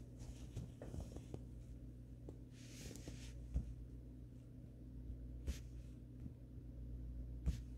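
Phone handling noise: a few sharp taps and a brief rustle over a faint low hum.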